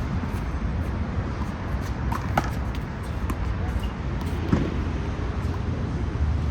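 Steady low outdoor rumble of traffic, with a few sharp smacks of a handball being struck and hitting the wall, a pair about two seconds in and another near the middle.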